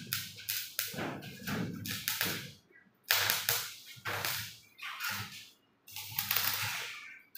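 Stick-welding arc crackling in short, repeated bursts as thin galvanized-iron sheet seams are tack-welded, several crackles a second with brief pauses.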